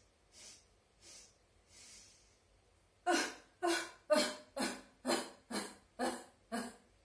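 A woman's sobbing breath: three short sniffs in through the nose, then about three seconds in a segmented exhalation of eight sob-like vowel sounds pushed out in short pulses, about two a second, louder than the sniffs.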